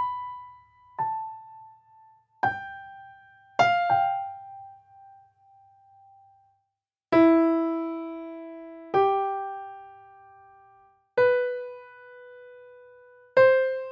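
Slow solo piano melody: single notes struck one at a time, a second or two apart, each left to ring and fade, with a pause of about two seconds in the middle.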